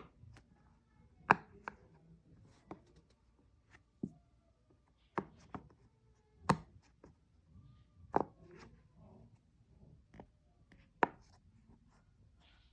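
Silicone pop-it fidget toy bubbles being pressed one at a time: about ten sharp pops at uneven intervals, some in quick pairs.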